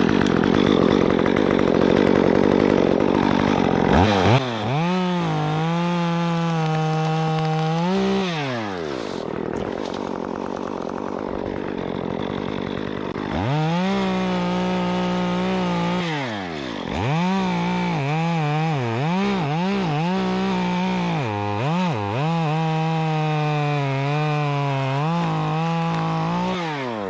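Stihl MS 194T top-handle two-stroke chainsaw with a 1/4-inch ripsaw chain, cutting wood for the first few seconds. It then runs at high revs, drops back toward idle, and revs up again several times with quick throttle blips, falling away near the end.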